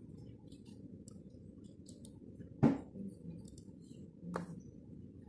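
Two sharp knocks about a second and a half apart, the first louder, over faint scattered ticking.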